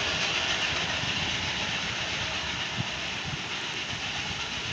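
NSW 59 class steam locomotive 5917 and its train pulling away and receding: a steady rushing noise that slowly fades.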